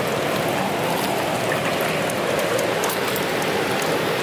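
River water rushing over rapids: a steady, even hiss.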